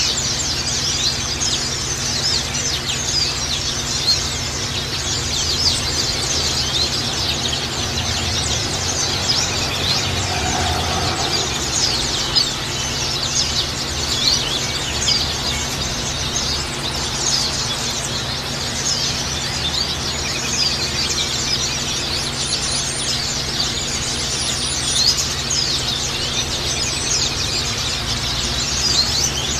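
White-eyes (pleci) chirping and twittering in a dense, continuous stream of quick high notes, the kind of lure recording played to set a white-eye singing. A steady low hum lies underneath.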